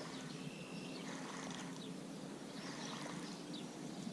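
Faint lakeside ambience: scattered short bird chirps over a low steady hum and a soft even hiss.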